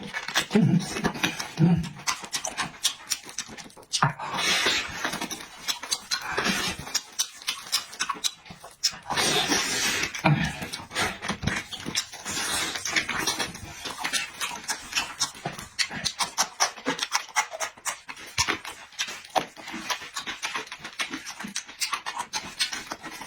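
Close-miked eating sounds: rapid, irregular wet chewing and mouth-smacking clicks.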